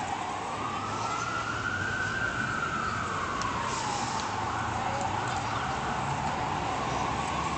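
An emergency vehicle's siren wailing, its pitch rising and falling slowly, about one full swing every four seconds, over a low steady rumble of city noise.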